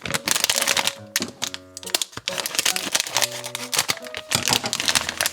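A blind bag's packaging crinkling and crackling as it is torn open and handled, a fast run of crisp clicks, over background music.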